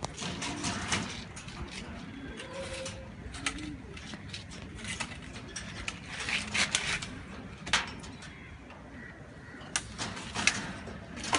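Hungarian Giant pigeons cooing in low calls that rise and fall, with scattered sharp rustles and clicks, the loudest of them about two-thirds of the way through and near the end.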